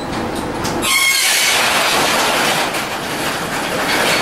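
Overhead garage door rolling open, with a high squeal and rumble from its rollers and track starting about a second in.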